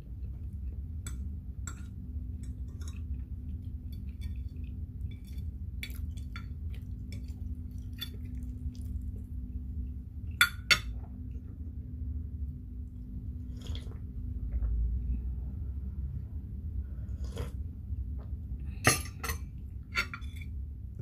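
Metal fork clinking and scraping on a ceramic plate while cutting fried banana: light scattered clinks, with a few louder ones about halfway through and near the end, over a steady low hum.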